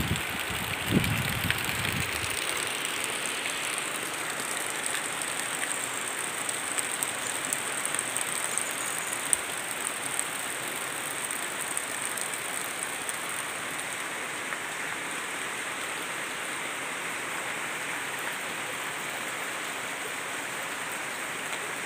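Heavy rain falling steadily: an even, dense hiss, with a low rumble in the first couple of seconds.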